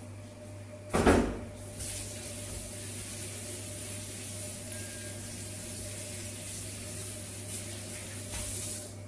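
A knock about a second in, then water running from a kitchen tap in a steady hiss for about seven seconds before it is shut off.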